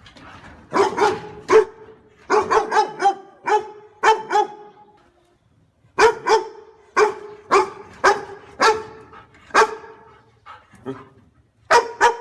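A dog barking repeatedly in quick runs of short, sharp barks, with a pause of about a second and a half near the middle.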